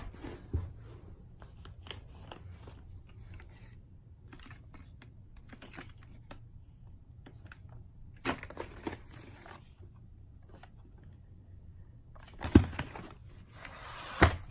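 A VHS tape in a cardboard slipcover being handled: faint rustling of cardboard and plastic with small clicks, a louder scrape about eight seconds in, and two sharp knocks near the end as the plastic cassette case is slid out of the slipcover.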